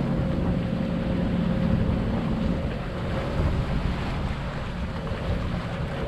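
Wind buffeting the microphone and waves washing past a small sailboat, over the steady drone of the boat's motor running to help it upwind. The motor's hum weakens about halfway through.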